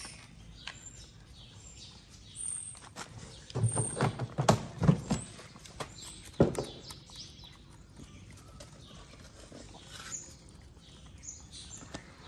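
Stray cats eating from foam food trays: scattered small crunches and knocks, with a louder cluster of knocks about four seconds in and a sharp one about six and a half seconds in. Faint bird chirps in the background.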